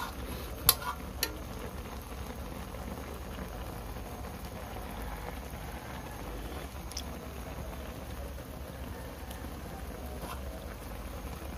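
Vinegar broth of fish and vegetables simmering in a wok, a steady bubbling hiss as the broth cooks down. Two sharp clicks about a second in.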